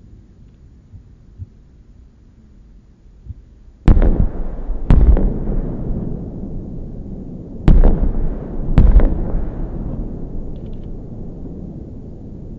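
Aerial firework shells bursting: a couple of faint pops, then four loud bangs in two pairs about a second apart. Each bang is followed by a long rumbling tail that slowly fades.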